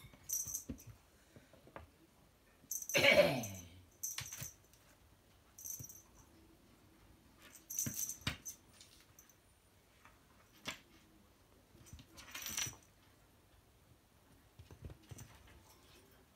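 Kitten scrambling and pouncing on a hardwood floor after a feather wand toy: scattered short scuffs, scratches and clicks of paws and claws on the boards and the toy rustling. About three seconds in comes one louder sound that falls in pitch.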